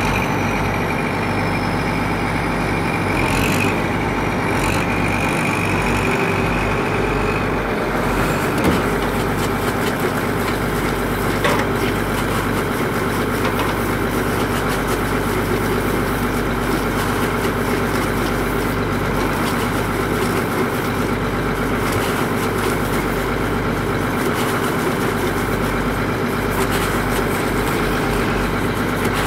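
Excavator's diesel engine running steadily as its arm works a bale-grabbing attachment, with a few brief knocks in the first dozen seconds.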